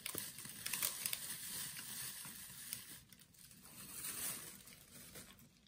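A small Shih Tzu mix eating dry treats off a wooden floor: faint, irregular clicks and crackles of chewing and sniffing.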